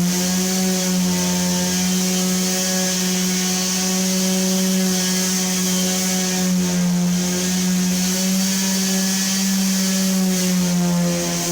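Electric sander running at steady speed, a constant motor hum with a hiss over it; its pitch sags slightly for a moment near the end, as if pressed harder against the wall.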